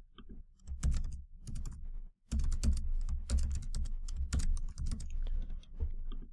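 Typing on a computer keyboard: a few scattered keystrokes, a short pause about two seconds in, then a quick run of keystrokes.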